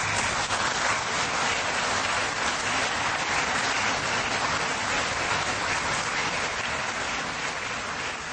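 Audience applause: many people clapping steadily, the sound beginning to taper off near the end.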